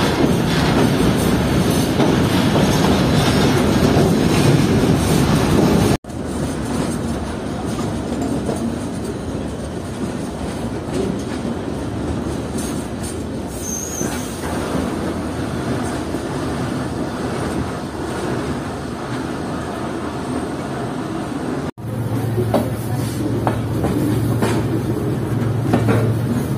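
Freight train running on the track, heard from its guard van: a steady rumble of wheels on rail with clickety-clack over the joints. A brief high wheel squeal comes about halfway through, and a steady low hum joins near the end.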